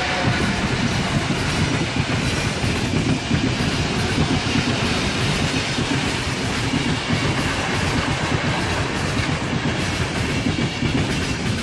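Passenger coaches of a long express train rolling past at speed: a steady rumble of steel wheels on rail with many short clicks from the wheels running over the track.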